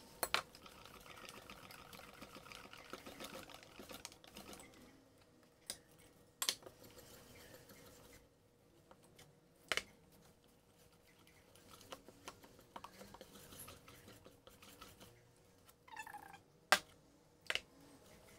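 Wire balloon whisk stirring a thick flour-and-water batter in a stainless steel bowl: a soft, steady scraping, broken by a few sharp clinks of the whisk against the metal bowl, two of them close together near the end.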